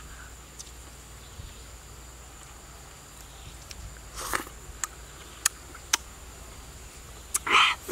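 Mouth sounds of someone eating honeycomb: a slurp about four seconds in, a few sharp lip smacks, and a louder slurp near the end. A faint, steady high insect drone runs underneath.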